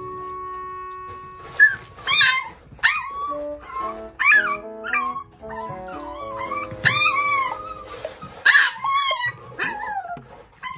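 Toy poodle puppy crying for its food in shrill, rising-and-falling yelps and whines, one after another in quick bouts, from about a second and a half in until near the end.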